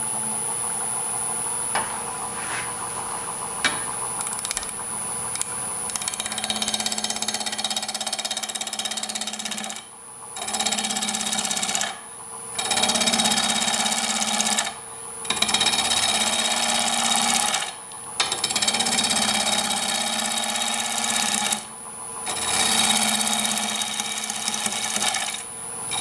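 Wood lathe running with a steady high whine while a gouge roughs down a green locust log held only in a scroll chuck. The tool bites the out-of-round wood in about six loud passes of a few seconds each, with short pauses between them. The lathe shuts off at the very end.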